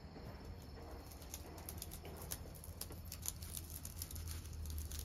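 Cat scratching its claws on a rolled-up sudare blind: a quick run of dry, crackly scratches of claws raking the slats, thickening from about a second in.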